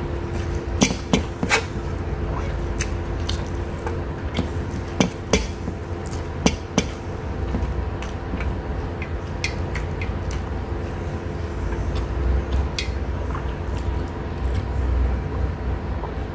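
Close-miked eating sounds: a person chewing rice and chicken eaten by hand, with scattered sharp mouth clicks and smacks. Under it runs a steady low hum.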